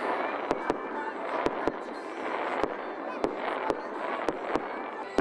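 Fireworks going off close by: a string of about ten sharp bangs, often in quick pairs, over a continuous crackling hiss of bursting shells.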